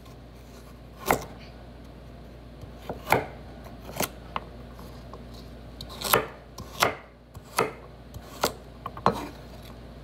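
Kitchen knife chopping carrots on a wooden cutting board: about eight separate sharp strikes of the blade through the carrot onto the board, at an uneven pace roughly a second apart.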